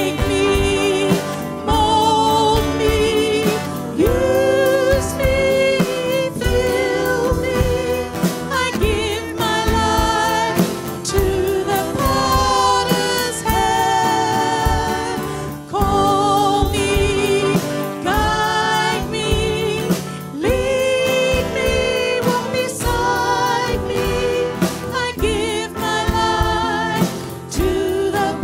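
Live worship music: several women singing a worship song together into microphones, their voices wavering with vibrato, over guitar and a drum kit.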